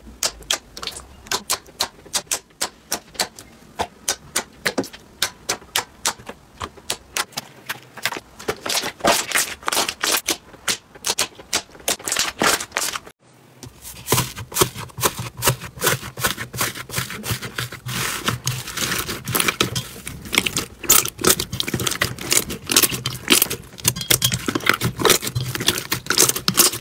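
Slime being poked and pressed by fingers, giving quick runs of sticky clicks and pops as air pockets in the slime burst. A brief break about halfway through, then a second slime pressed and squeezed in a metal tray and bowl, with denser clicking.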